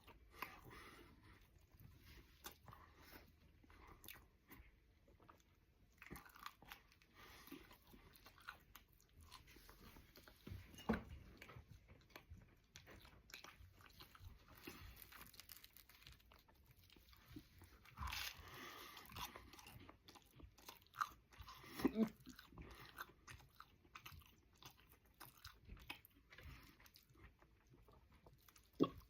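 A person chewing and crunching food, with irregular soft clicks throughout and a few louder bites or knocks.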